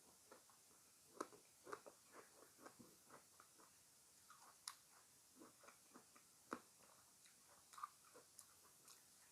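Close-miked chewing and biting of fresh fruit: irregular wet crunches and mouth clicks, a few a second, with louder crunches about a second in and around six and a half seconds in.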